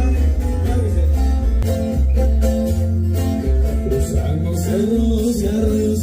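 A band playing through a PA: heavy steady bass, plucked guitar and a singing voice.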